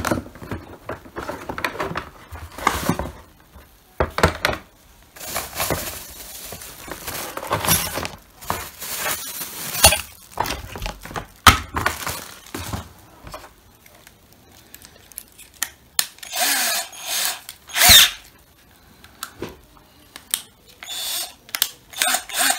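A cordless drill-driver being readied, with several short, irregular spurts of noise and clicks and knocks of handling. The loudest is a sharp knock near the end.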